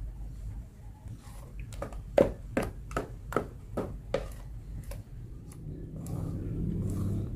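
Wooden spatula beating thick martabak batter in a plastic tub, knocking against the tub's side in a regular run of about two and a half strokes a second, from about two seconds in until about five seconds in.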